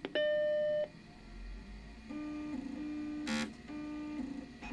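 Apple Macintosh SE switched on: a click, then its startup chime, a single steady beep lasting under a second. About two seconds in come a couple of seconds of steady buzzing tones that step between two pitches, broken by a short clatter, as the machine starts up.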